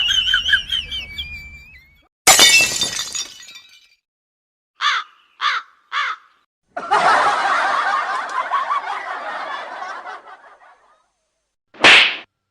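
A string of comedy sound effects: a sharp crash of something breaking, then three short squeaky blips falling in pitch. After that comes a long jumbled, hissy stretch that fades out, and one short loud blast near the end.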